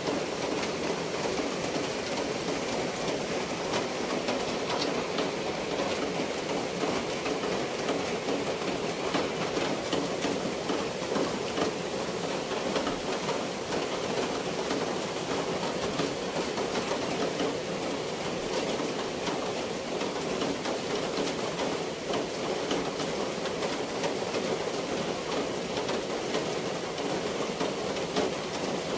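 Steady, even patter and rush of water, dense with fine drops, holding the same level throughout.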